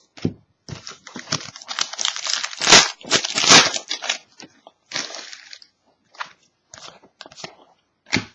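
Foil trading-card pack wrapper being torn open and crinkled for about three seconds, followed by short scattered rustles and clicks as the cards are handled.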